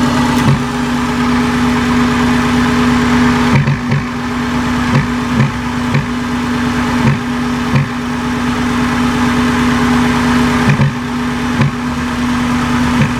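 Subaru EJ20G turbocharged flat-four idling, with a steady droning tone and irregular short sharp blips every half second to second or so. This is the weird noise the owner hears coming from the intake; the car idles fine but hesitates a little on boost.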